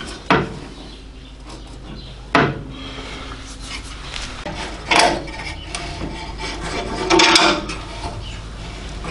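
A steel strip and welding clamps being set against a car's sill panel: short metal knocks just after the start, about two and a half seconds in and around five seconds in, with scraping and rubbing between them, and a longer clattering rattle around seven seconds.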